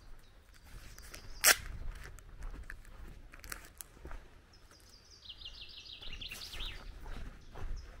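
Footsteps crunching on a gravel lane, with birds singing. A little past halfway a songbird gives a quick run of repeated notes that steps down in pitch, and one sharp click about a second and a half in is the loudest sound.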